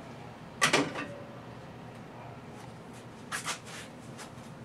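Caulking gun being worked and handled: one sharp click-rattle about half a second in, then a quick pair of clicks past the three-second mark and a few faint ticks.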